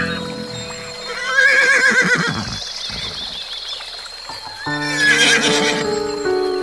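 An animal calling over background music: a long wavering call about a second in, and a second call about five seconds in.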